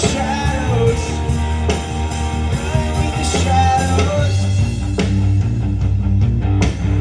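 Live rock band playing an instrumental passage between vocal lines: electric guitars, bass and drums with a steady beat.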